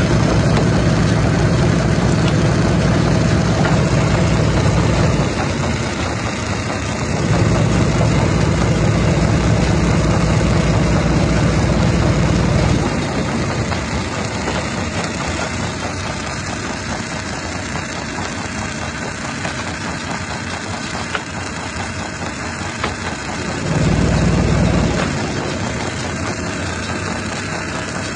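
A jaw crusher at a stone-crushing plant running with a continuous dense mechanical clatter. Heavy low rumbling swells in three times: for about five seconds at the start, for about six seconds soon after, and briefly near the end.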